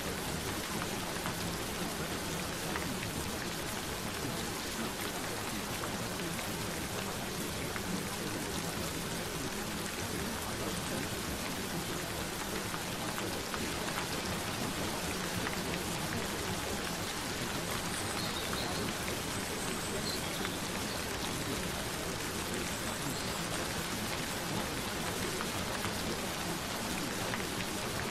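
Steady rain falling, an even patter of many drops with no breaks.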